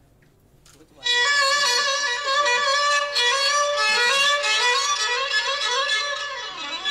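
Violin playing a quick melodic phrase that starts about a second in, after a near-silent moment, with a sliding swoop down and back up in pitch near the end.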